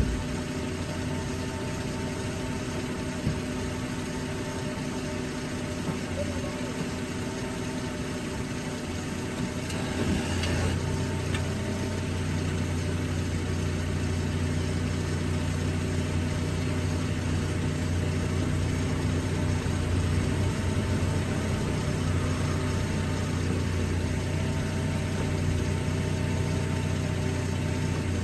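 A Dodge vehicle running, heard from a phone tucked inside the suspension: a steady mechanical drone that grows louder about ten seconds in, with one faint knock about three seconds in.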